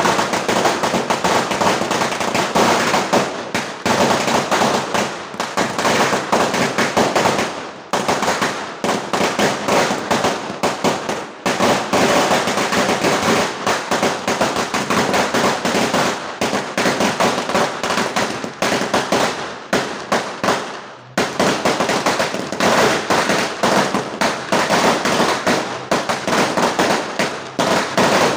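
A long string of firecrackers going off on pavement: a rapid, continuous volley of sharp bangs and crackles. It pauses briefly a few times before stopping right at the end.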